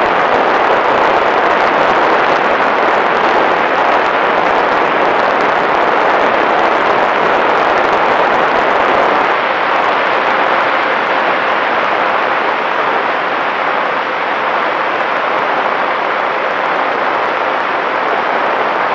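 Steady rush of airflow and propeller noise picked up by a small fixed-wing drone's onboard camera in flight. It eases slightly about halfway through, when a faint steady hum comes in underneath.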